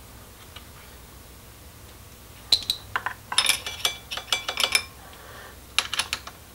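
Metal parts clicking and clinking against a milling machine vise as an aluminum strip is set and adjusted in its jaws: a quick run of sharp, ringing clinks from about two and a half seconds in to nearly five seconds, then a few more near the end.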